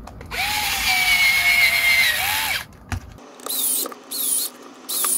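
Cordless electric screwdriver driving screws into a drill battery pack's plastic case: one motor whine of about two seconds, winding up and down, then two or three short bursts.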